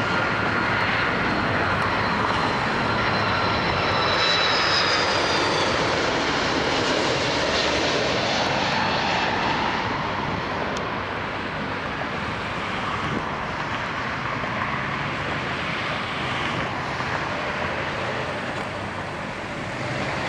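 Airbus A330-300 airliner landing, its twin General Electric CF6 turbofans a steady roar with high whining tones that drift slightly lower in pitch. It is loudest about four to five seconds in and eases off after about ten seconds.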